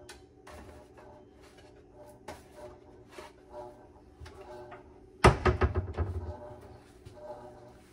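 Laundry being handled at a front-loading washer and dryer: small clicks and knocks of clothes and fittings, then a sudden loud bang about five seconds in that rattles on for about a second.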